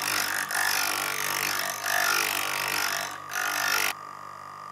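Chisel steel being ground on the spinning stone of an electric sharpening grinder: a steady grinding hiss with a brief break about three seconds in. The grinding stops near the end, leaving only the grinder's motor hum.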